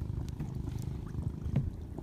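Low rumbling wind noise on the microphone, with one short knock about one and a half seconds in.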